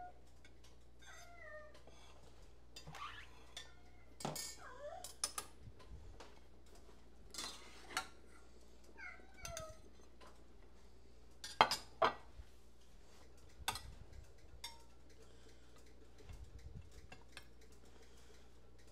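A cat meowing several times, short falling calls, mostly in the first half. A metal spatula clinks against the crock and plate, loudest in two sharp clinks a little past the middle.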